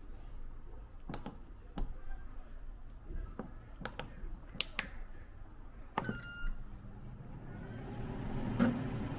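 Ninja Foodi Max Dual Zone air fryer being set: button presses on the control panel clicking several times, a short beep about six seconds in, then the air fryer's fan starting and running steadily near the end.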